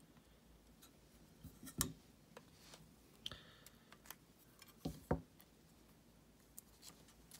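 Hard plastic clicks and taps as a magnetic one-touch card holder is pried open and a trading card is slid out of it, with two sharper clicks about two seconds and five seconds in.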